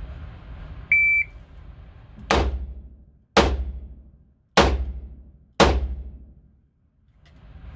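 A shot timer's start beep, then four revolver shots about a second apart, each ringing out in an indoor firing range.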